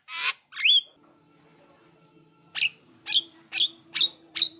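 Javan myna calling: a harsh rasping note and a rising whistle, then after a short pause five short, sharp, high calls about two a second.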